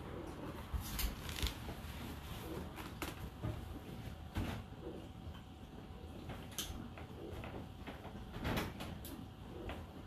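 Whirlpool WFO3P33DLXUK dishwasher running its final rinse: a low steady hum, with scattered knocks and clicks.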